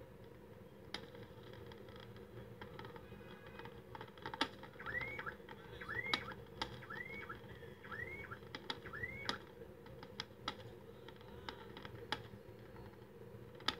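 Fireworks going off: scattered sharp bangs and crackles of shells bursting, with a run of five short whistles that rise then fall, about a second apart, in the middle.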